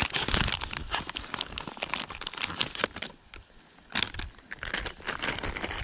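Plastic soft-bait pouch crinkling and rustling as fingers work it open and handle it to get a soft-plastic lure out, in quick irregular crackles with a short lull about three seconds in.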